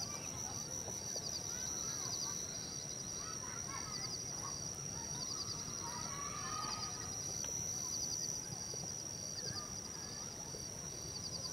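Forest ambience: a steady high insect drone, short chirping trills repeating about once a second, and scattered bird chirps.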